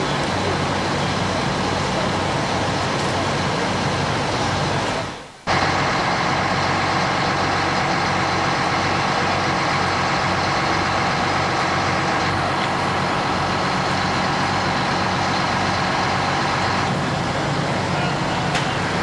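Fire engine's engine running steadily while pumping, a constant drone. The sound drops out briefly about five seconds in, then the drone resumes.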